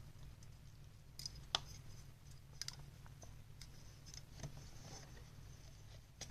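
Scattered small clicks and taps of a plastic laptop CPU fan being handled and pressed into place on its heatsink, the sharpest click about one and a half seconds in, over a faint steady low hum.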